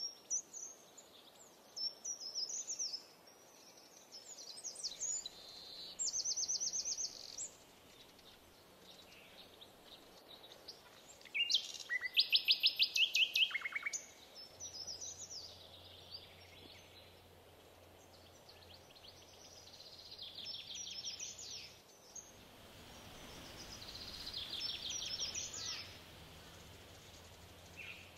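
Several wild birds calling and singing over a quiet outdoor background. The loudest call is a fast run of short repeated notes about twelve seconds in, with other chirps and trills scattered throughout.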